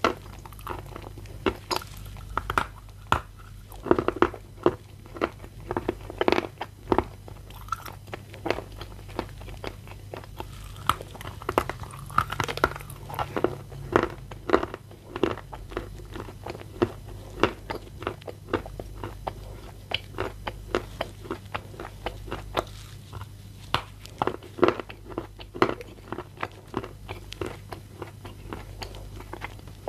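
Close-miked biting and chewing of a chunk of Bashkir edible clay, the 'ryzhik' variety: many sharp, dry crunches in quick, irregular succession, with short pauses between bites.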